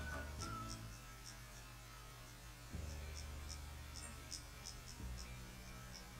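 Faint, steady low hum that gets a little louder about a third of the way in, with scattered faint, short high ticks.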